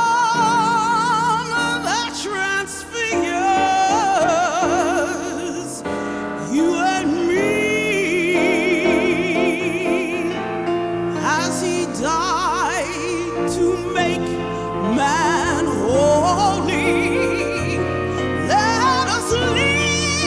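Music: operatic singing with wide vibrato on long held notes, over a sustained accompaniment.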